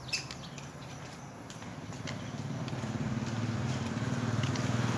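Motorcycle engine approaching, its hum growing steadily louder from about two seconds in. A few light clicks come in the first second and a half.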